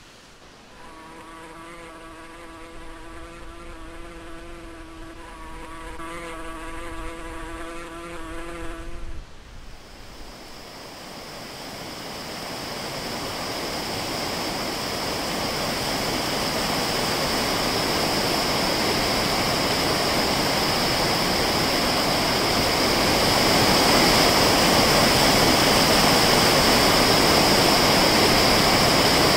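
A flying insect buzzes close by with a steady hum for about eight seconds, then stops abruptly. The sound of rushing water then builds and grows louder, ending as water pouring over a small weir.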